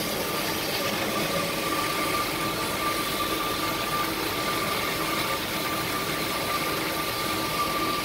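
Uzay 420 metal-cutting band saw running steadily, its blade sawing through a thick-walled metal pipe under coolant. It makes an even mechanical hum with a faint steady high whine.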